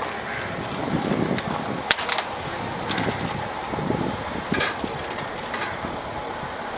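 Mercedes-Benz M-Class SUV engine running slowly as the SUV creeps down a steep ramp, heard under steady outdoor noise. A few sharp clicks and knocks come about two seconds in and again a little after four seconds.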